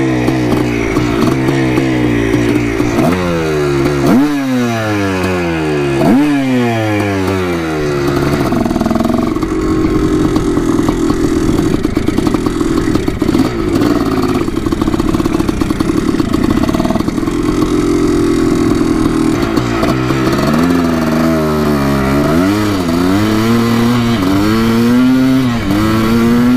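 Yamaha YZ490 single-cylinder two-stroke dirt bike engine running under way. It is blipped up and down sharply several times in the first few seconds, then pulls at a steady pitch, and near the end rises and falls again with the throttle.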